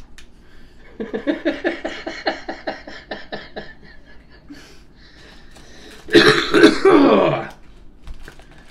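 People laughing, a quick run of short 'ha' pulses. About six seconds in comes a loud, harsh cough of about a second and a half, the loudest sound.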